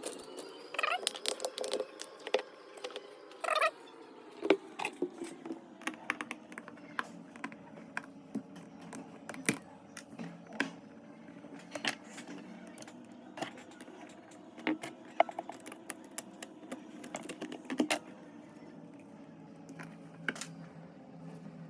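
Irregular light clicks and taps of small tools and phone parts being handled during a smartphone repair, over a faint, slowly wavering hum.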